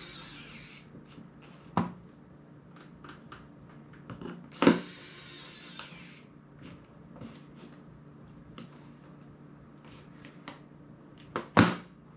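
A pry tool works at the plastic casing of a small Sony Walkman MP3 player. Sharp clicks and snaps come about two seconds in, four and a half seconds in (the loudest) and near the end, with light ticking between them. A hissing scrape lasts over a second right after the loudest snap.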